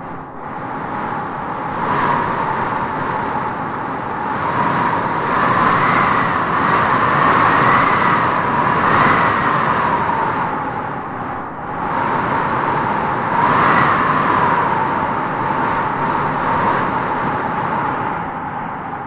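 Wind howling: a steady rush with a whistling tone that wavers up and down as it swells in gusts, loudest a third of the way in and again about two-thirds in.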